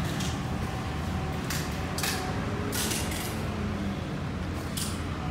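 Short rustles of papers and a document folder being handled, four or so brief scrapes over a steady low room hum.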